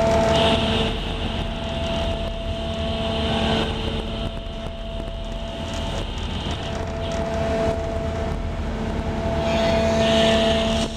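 Ship's engine machinery running with a steady hum of several pitches over a rushing drone. A higher hiss comes in about half a second in, drops out after about six seconds, and returns near the end.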